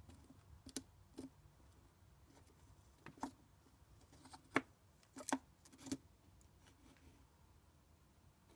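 Chinchilla gnawing a nut held in its paws: irregular, sharp, faint crunches, several in the first six seconds and fewer after that.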